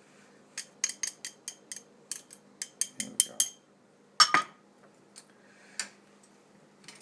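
Chopsticks clinking against the rim of a bowl as scrambled egg is tapped out into the soup: a quick run of about a dozen light, ringing clinks, then a louder clatter about four seconds in and a couple of single taps.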